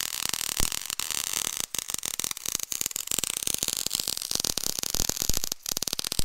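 Electric arc welding on steel: a steady crackling hiss from the arc, dense with small sharp pops, broken by a few brief pauses.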